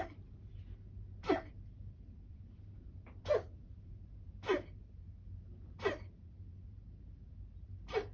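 A series of short single coughs, about six of them, one every one to two seconds.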